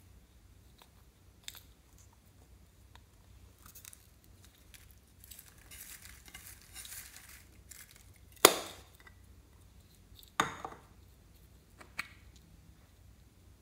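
Small plastic containers of slime toppings handled over a glass dish. First a soft rustling as blue shredded strands are sprinkled in, then three sharp plastic clicks, the first the loudest.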